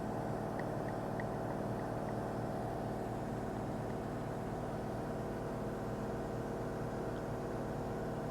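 Steady mechanical drone of a machine running at constant speed, with a few faint ticks in the first couple of seconds.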